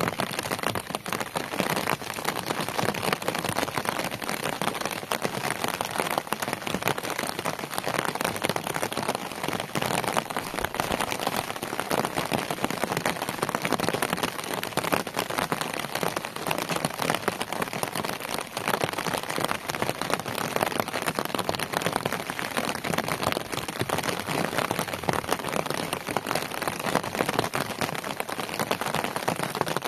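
Steady rain falling, a dense, even hiss of countless small drop hits that cuts in suddenly at the start and holds unchanged throughout.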